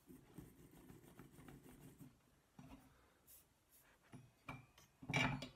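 Soldering iron tip scratched and rubbed in a brass-wool tip cleaner for about two seconds, then small handling ticks on the bench and one louder knock near the end.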